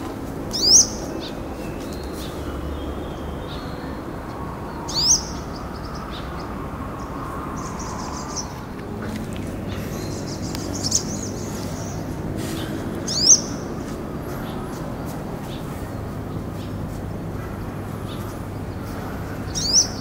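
Male olive-backed sunbird singing: a loud, sharp, rising high note repeated four times several seconds apart, with softer high twittering phrases between them.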